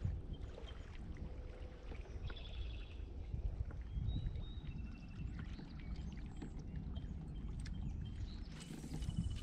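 Water lapping and splashing against a kayak hull, under a steady low rumble of wind on the microphone, with a few faint high chirps.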